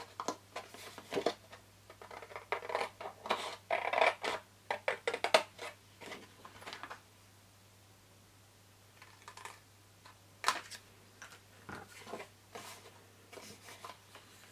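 Scissors cutting through white cardstock: a quick run of sharp snips for about seven seconds. After a pause come a few quieter, scattered clicks.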